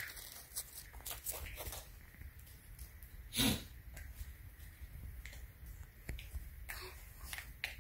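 Faint scattered rustles and crinkles of disposable puppy training pads as a small kitten moves and plays on them, with one short louder puff about three and a half seconds in.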